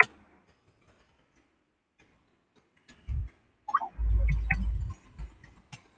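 Scattered soft clicks and taps, then a low thump about three seconds in and a dull low rumble a second later: hands handling things close to the microphone.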